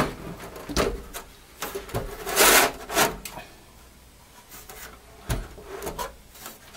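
The metal case of a Tektronix TDS 340 oscilloscope scraping and rubbing as it is slid off the chassis. There is a string of short rubs and knocks, with the longest, loudest scrape about two and a half seconds in and a dull thump about five seconds in.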